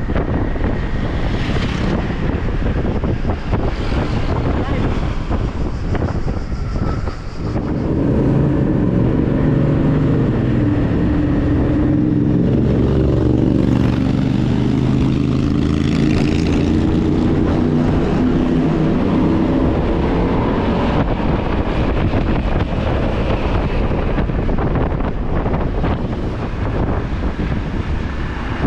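Wind buffeting a helmet-mounted action camera's microphone over the running noise of a scooter on the road. From about eight seconds in until about twenty-one seconds, a louder, steady engine drone sits on top, while a motorcycle rides close ahead.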